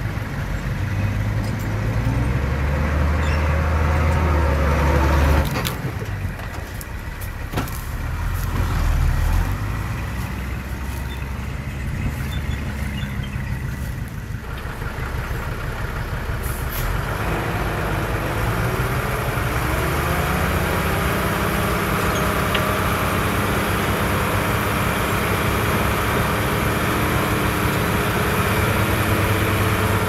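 Heavy diesel engine of earthmoving machinery running under changing load. It gets louder about seventeen seconds in, its pitch rises a few seconds later, and then it holds steady.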